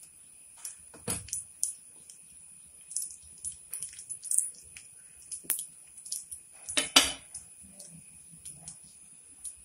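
Small coconut pieces frying in ghee in a small pan, crackling with irregular short pops. One louder crackle comes about seven seconds in.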